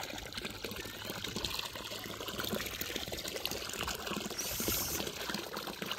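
Water trickling and pouring steadily, the tubewell water that fills the cattle's trough.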